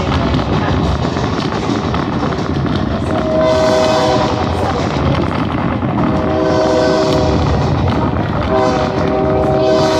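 Locomotive horn sounding three blasts of one to two seconds each, a chord of several steady notes, over the steady rumble of the passenger coach rolling along the track.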